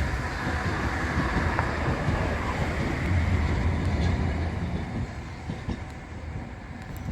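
A train running past on the tracks: a steady rumble that fades away over the last couple of seconds.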